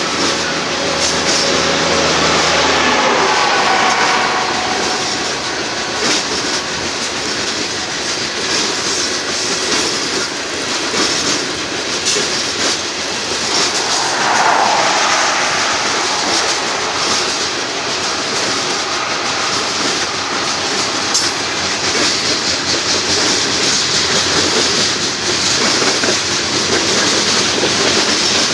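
Loaded Union Pacific coal train cars rolling past: a steady rumble with clickety-clack of wheels over the rail joints. Brief wheel squeals rise out of it about a second in and again about halfway through.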